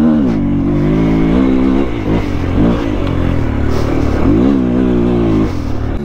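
Off-road motorcycle engine revving up and dropping back several times, about once every second or two, as the rider works clutch and throttle on a loose sandy trail.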